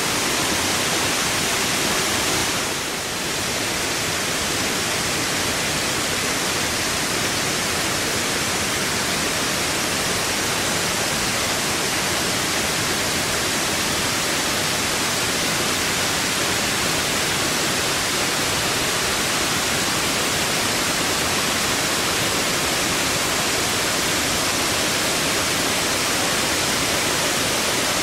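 Small waterfalls cascading over rocks into a pool: a steady rushing of water, dipping briefly about three seconds in.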